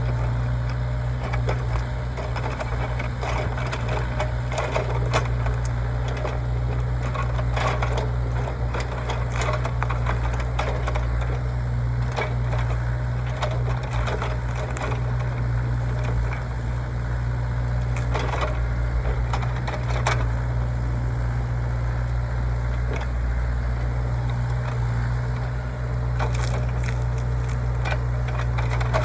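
Hyundai HY60 excavator's diesel engine running steadily under load, with repeated cracking and snapping of wood as brush and roots are broken and torn out.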